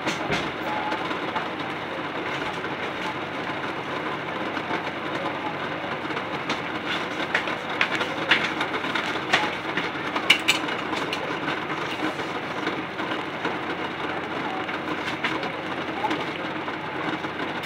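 Pot of water at a rolling boil with eggs in it, bubbling steadily, with scattered small clicks.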